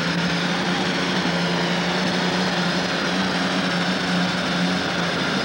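Super stock pulling tractor's turbocharged diesel engine running flat out at a steady pitch under the load of the sled, with the rear tyres spinning.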